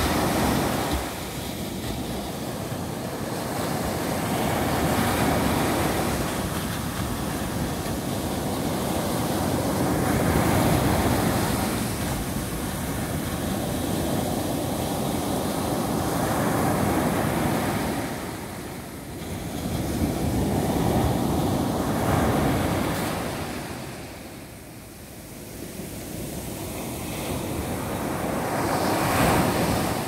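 Small waves breaking on a sandy beach and washing up the shore. The surf swells and fades every five or six seconds, with a quieter lull about three-quarters of the way through.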